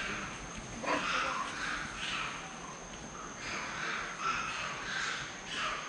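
Long-tailed macaques giving a series of short, harsh calls, one after another.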